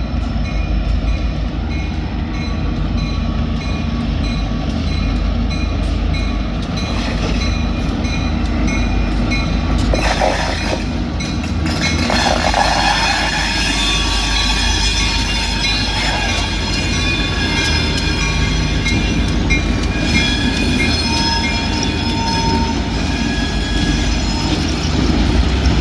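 EMD diesel freight locomotives rolling slowly along street track with a steady low engine rumble. There is a brief rush of noise about ten seconds in, and high squealing tones from the wheels on the crooked track through the second half.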